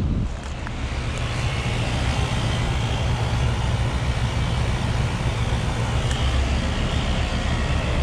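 1990 York Stellar Series heat pump outdoor unit running in its defrost cycle: a steady low hum with a hiss over it that grows about a second in.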